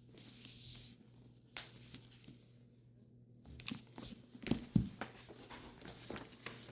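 Wrapping rustling and crinkling as a hardback book is handled, with a cluster of soft knocks and thumps in the middle, the loudest two close together.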